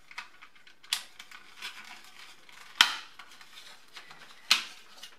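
Plastic clicks and knocks from handling a Dyson stick-vacuum wall mount while the charging cable's plug is pushed into it. There are three sharp clicks, at about one second, three seconds (the loudest) and four and a half seconds, with small rustling handling noises between them.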